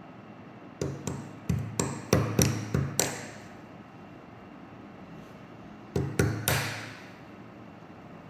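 Sharp metal-on-metal taps while a small piece of hair-clip steel is worked: a quick run of about eight strikes, then three more a few seconds later, each with a brief ring.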